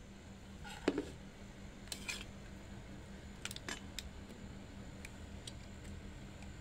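Light clicks and clinks of a metal spoon being picked up from a plate and set into a bowl, with small handling knocks scattered through, over a faint steady low hum.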